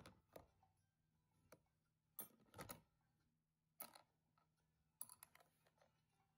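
Quiet handling noise: several short clicks and knocks as rusty steel compass-protractor parts and a clear plastic tub are moved about with rubber-gloved hands.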